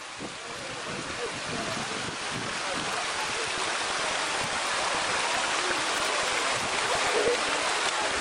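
Water running in a small spring-fed stream, a steady rushing hiss that grows gradually louder.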